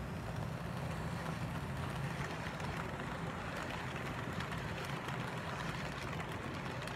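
HO-scale model freight train rolling past: a steady rumble of wheels on the track with a low, even hum.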